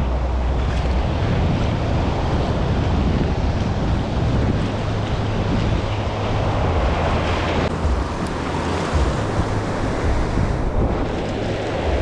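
Wind buffeting the microphone: a steady, loud rush with uneven low gusts, and no distinct events.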